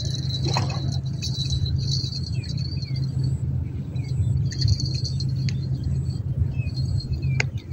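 Steady low drone of the excavator's diesel engine running across the river, with insects chirring in a pulsing high band.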